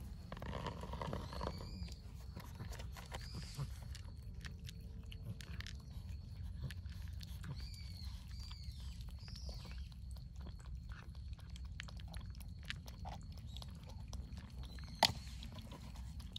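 Cats eating: dry cat kibble being crunched and milk lapped from a bowl, heard as many small irregular clicks. A few short high chirps come in the first half, and a single sharp click near the end.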